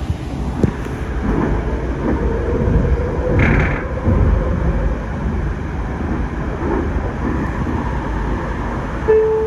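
Interior ride noise of a Sound Transit Link Series 2 (Siemens S700) light rail car running along the track: a steady low rumble with a faint steady whine and a brief hiss about three and a half seconds in. Just before the end, the onboard chime that precedes the next-stop announcement starts.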